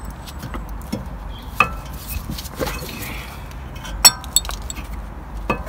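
Sharp metallic clinks and knocks from a VW Polo 6R's loose front brake caliper and pads being handled against the carrier bracket and disc. There are several separate knocks, the loudest about four seconds in, some with a short ring.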